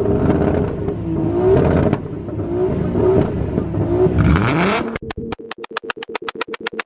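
Tuned car engine revved hard several times, pitch climbing and falling, then held on a two-step launch-control rev limiter from about five seconds in, its exhaust popping and banging at about ten bangs a second.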